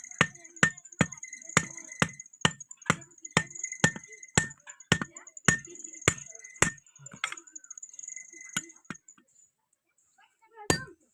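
Blacksmith's hammer striking hot steel on an anvil at a steady pace of about two blows a second, the anvil ringing high between blows. The rhythm stops after about seven seconds, followed by a few scattered strikes and one loud blow near the end.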